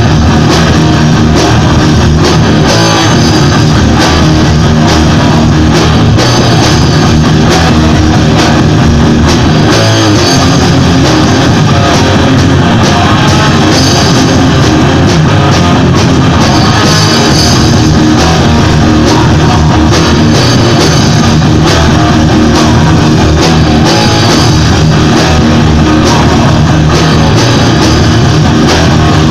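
Three-piece rock band playing loud and live: electric guitars over a drum kit, with no break.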